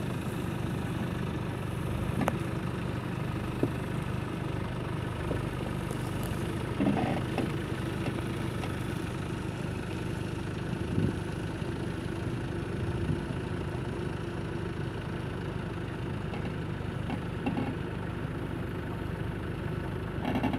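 Land Rover Discovery's engine running steadily at low revs as the 4x4 crawls slowly over rough forest ground, with a few brief knocks.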